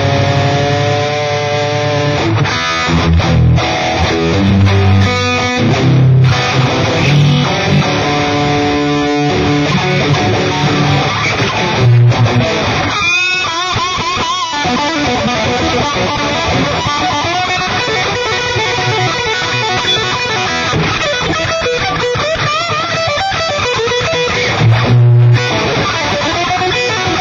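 Dean Razorback electric guitar being played: short, strong low notes struck again and again between higher lead lines, with wavering bent notes about halfway through.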